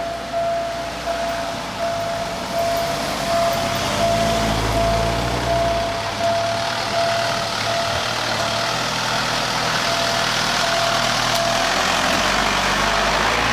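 Railway level-crossing warning bell dinging over and over, about once every 0.8 s, over the low running of vehicle engines and road noise. The crossing is malfunctioning: the barrier has not lifted after the train passed.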